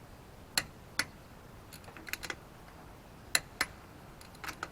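Click-type torque wrench set to 85, tightening wheel lug nuts on a truck hub: a string of sharp metallic clicks, some single and some in quick pairs, as the wrench is worked and clicks over at torque.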